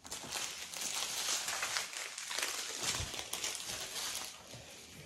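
Strips of thin plastic drill bags from a diamond-painting kit crinkling as they are handled. The rustle fades near the end.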